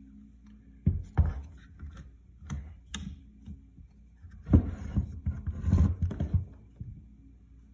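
Plastic one-handed bar clamps and spring clamps handled on a wooden workbench: scattered clacks and knocks as clamps are worked and knocked together, with a busier, louder run of clatter in the second half as they are set down.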